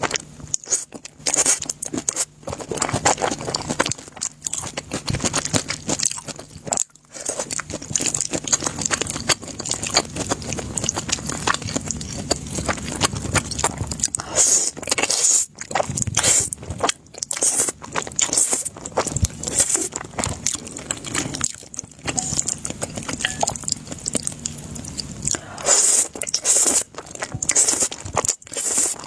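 Close-miked eating of thick black-sauce noodles: repeated wet slurps as strands are drawn into the mouth, with chewing and crunchy bites in between.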